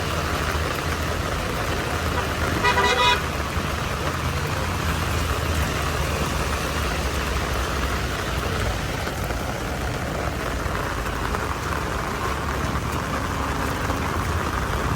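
Steady heavy rain with a low rumble of traffic; a vehicle horn honks once, briefly, about two and a half seconds in.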